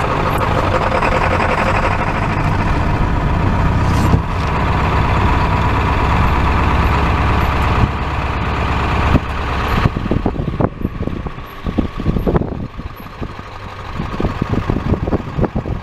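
Pickup truck driving, with steady engine and road noise for about nine seconds. After that the sound turns uneven, with many short knocks and bumps.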